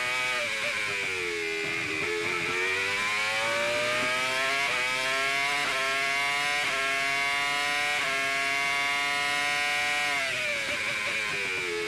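Jordan EJ11's Honda V10 Formula One engine at high revs, heard onboard. The revs drop at the start, then climb through a few quick upshifts about halfway through, hold steady, and drop again near the end.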